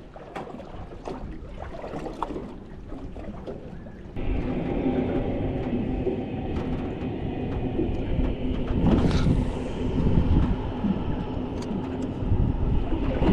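Faint clicks and handling at first, then about four seconds in a boat's motor sets in suddenly and runs with a steady hum, over wind and water noise.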